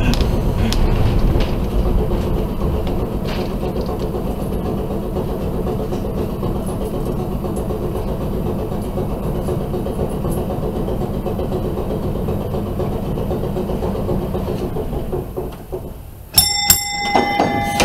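Historic electric streetcar running along its track: a steady low rumble with a faint hum. The rumble fades about fifteen seconds in, and near the end a bell rings out sharply, several tones ringing on together.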